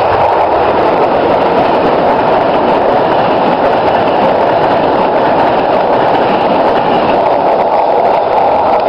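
Locomotive-hauled Eurocity passenger train running through the station at speed just beside the platform: a loud, steady rush of wheel and rail noise.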